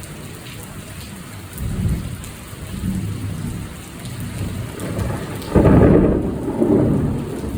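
Thunder over steady rain: low rumbling builds, then a loud thunderclap about five and a half seconds in rolls on into a long rumble.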